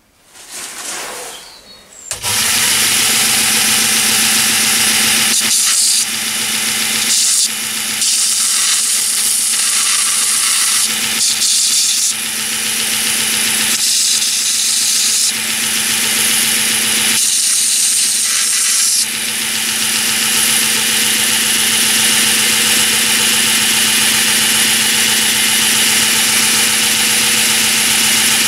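Belt grinder driven by a 500 W treadmill motor switches on about two seconds in and runs steadily with a constant hum. A metal bolt is held against the sanding belt at times, changing the grinding hiss.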